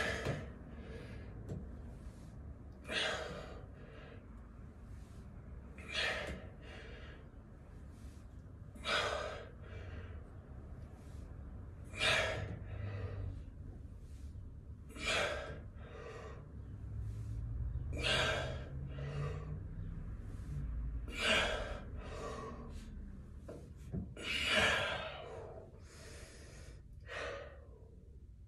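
A man's sharp, forceful breaths, about one every three seconds, each one with the strain of a hanging knee raise on a pull-up bar.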